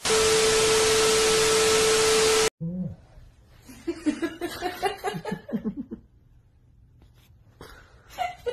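Loud burst of TV static hiss with a steady test tone through it, used as a glitch transition effect, lasting about two and a half seconds and cutting off suddenly. After it comes quieter, choppy voice sounds like soft laughter or speech.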